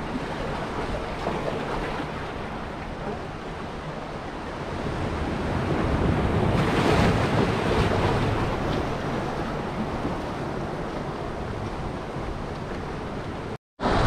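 Sea waves washing against rocks, with wind buffeting the microphone; the surf swells louder for a few seconds around the middle, and the sound drops out for a moment just before the end.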